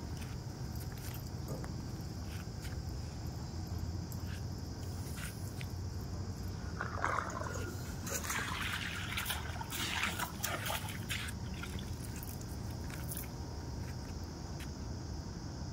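Outdoor ambience beside a swimming pool: a steady low rumble under a constant high-pitched drone, with scattered faint clicks and a flurry of short chirps and clicks about seven to eleven seconds in.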